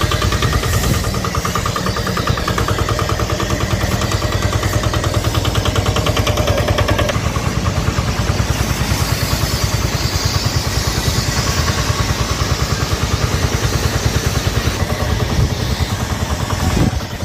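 An engine running steadily with a fast, even pulse, under the hiss of a spray gun jetting cleaning liquid onto a truck.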